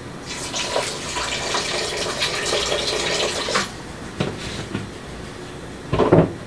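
Water poured from a plastic jug into an aluminium pressure cooker of mutton curry, splashing into the liquid for about three seconds as water is added before pressure-cooking. A few light knocks follow, then a louder clunk near the end.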